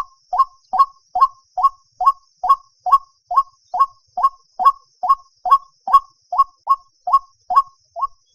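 White-breasted waterhen calling: a long, even run of short, identical notes, about two and a half a second, breaking off near the end.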